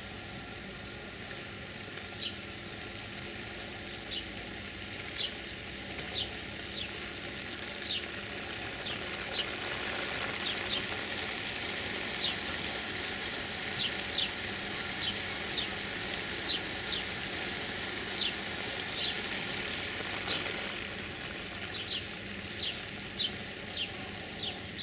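Steady hiss of water spray from an oscillating sprinkler's fan of jets, louder through the middle and easing off near the end. Over it a bird chirps over and over, short high falling notes about one or two a second.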